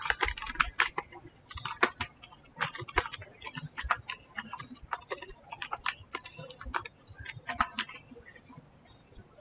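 Computer keyboard keys clicking under typing: irregular keystrokes, several a second, thinning out near the end.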